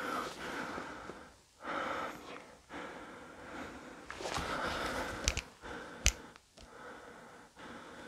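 A person breathing heavily close to the microphone, several breaths in a row, with a sharp click about six seconds in.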